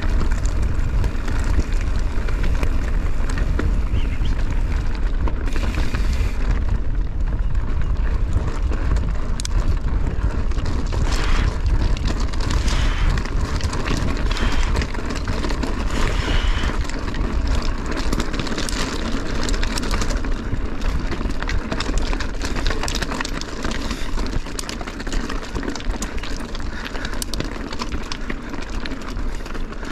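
Mountain bike riding over a rocky trail: tyres crunching on stones with frequent rattles and clicks from the bike over the bumps, under steady wind rumble on the microphone.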